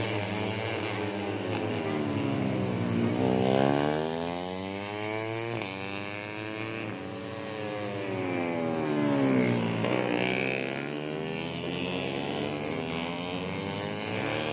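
150cc four-stroke underbone racing motorcycles running at high revs. Several engines overlap, and their pitch climbs and drops again and again as the bikes go by.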